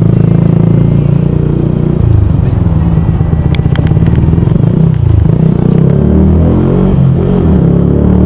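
Yamaha YZF-R125's single-cylinder four-stroke engine running loud under the rider. Its note drops about two seconds in and again near five seconds, then climbs steadily.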